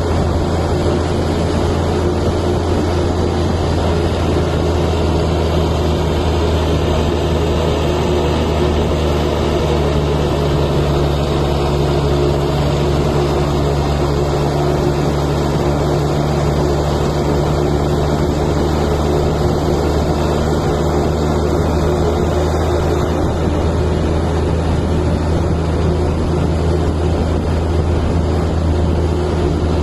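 Kenworth T800 semi-truck's diesel engine and stacks running steadily under way, a constant low drone mixed with road noise.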